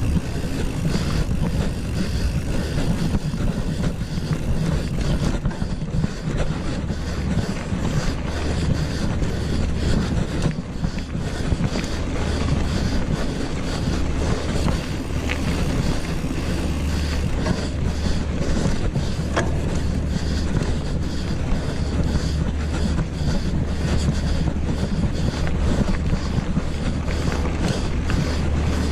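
Wind rushing over the microphone and mountain-bike tyres rolling over gravel at speed, a steady low rumble, with frequent small clicks and knocks from the bike going over the rough surface.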